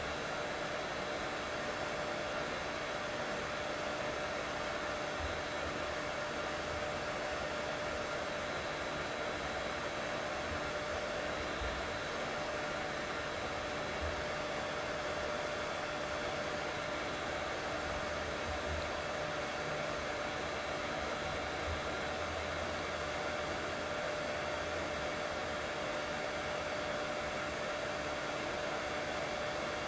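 Steady white noise for lulling a colicky baby to sleep: an even, unchanging rushing hiss with a faint constant hum running under it.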